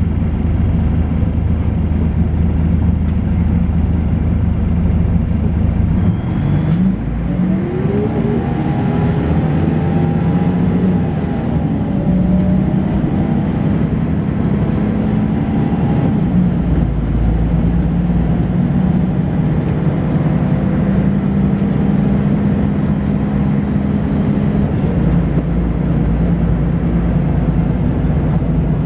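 Volvo B10BLE bus with a ZF automatic gearbox: the engine is idling, then about six seconds in the bus pulls away, the engine note rising as it accelerates and changes up, and it then runs on steadily. A thin, high-pitched whine comes in as it moves off and carries on throughout.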